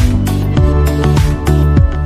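Background music with a steady beat under held chords.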